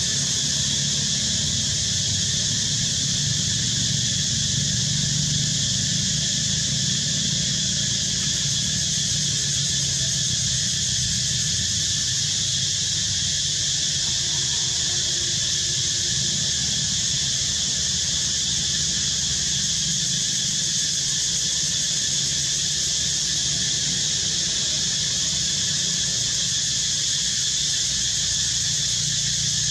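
Steady, unbroken drone of cicadas with a fainter low rumble underneath.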